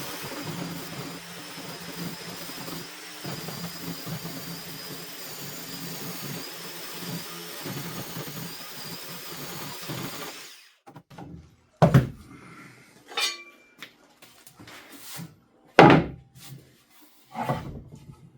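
A power saw cutting through a board of wood for about ten seconds, then stopping abruptly. Several wooden knocks and thumps follow as the cut pieces are handled and set down.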